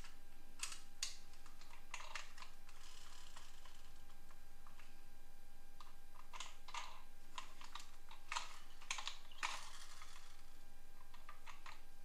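Plastic toy vehicles clicking and knocking against each other and the box as they are picked up and handled, in scattered irregular taps with brief rustling.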